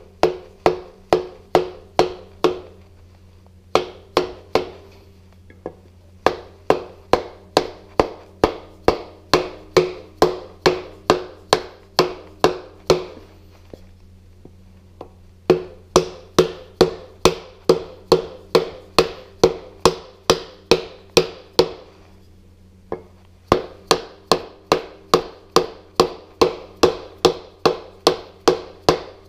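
A mallet taps on a 2x4 held against the oil pump, driving the pump into a Volkswagen Type 1 engine case. The knocks are light and even, about three a second, with a hollow wooden ring. They come in runs with short pauses between them.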